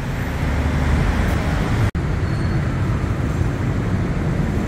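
City street traffic noise: a steady rumble of passing road vehicles. It drops out for an instant about two seconds in.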